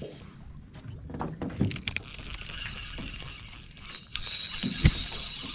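Fishing gear knocking against an aluminium jon boat's hull: a few knocks early, then one sharp knock near the end, the loudest sound. About four seconds in, a steady high whine starts and keeps going.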